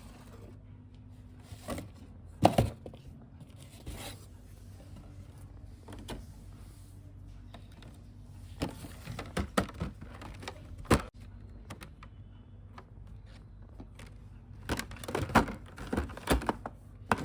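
Small plastic toy pieces being handled and set down: scattered clicks, taps and knocks, the loudest about two and a half seconds in, with clusters near the middle and near the end, over a faint steady low hum.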